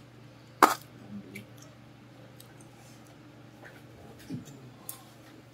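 Thin brittle shell of a longan fruit cracking sharply once as it is pressed open by hand, about half a second in. Faint clicks and soft chewing follow as the fruit is eaten.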